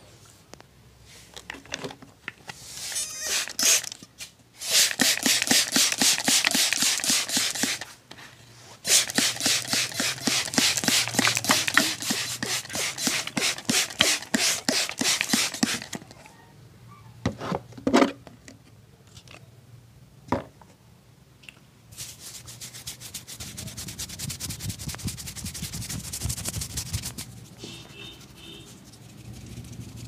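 Hands rubbing and scrubbing a man's wet hair in a vigorous head massage: fast, even strokes in two long bouts, then a softer bout near the end. Around the middle come a few short sharp hisses, where the barber has a hand spray bottle at the head.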